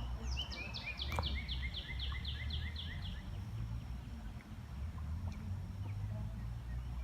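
A bird singing a quick series of about a dozen short, falling notes for about three seconds, over a steady low rumble.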